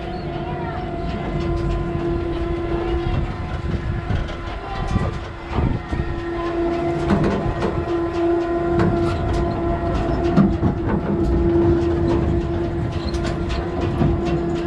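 A steady hum holding one pitch with fainter overtones, over a rough, shifting low rumble, likely wind on the microphone.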